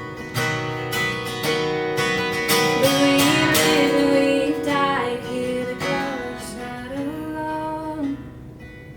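Acoustic guitar strummed in a live song's instrumental passage between sung lines, growing quieter about eight seconds in.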